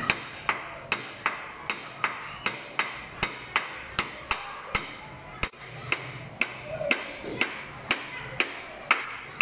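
A hammer driving nails into wooden boards: steady blows, about two and a half a second, with a short break about five seconds in.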